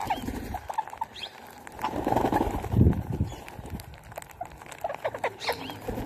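Parakeets feeding in a flock give short, scattered squeaky calls. Low muffled rumbles come about two to three seconds in.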